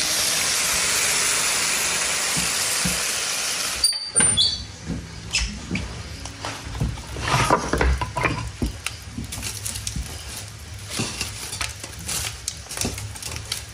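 A steady sizzling hiss that stops abruptly about four seconds in. After that, a wood fire crackles in an open cast-iron wood stove, with scattered clicks and knocks as wood is handled at the firebox.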